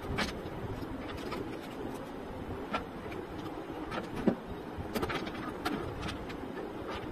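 Small metal construction-kit parts and plastic wheels clicking and clinking irregularly against each other and the tabletop as a toy car is put together, the sharpest knock a little past the middle. Under it runs a steady background hiss.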